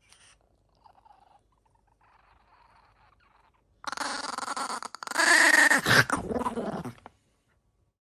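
A dog vocalizing loudly for about three seconds starting around halfway through, its pitch sliding down near the end, after a few faint quieter sounds.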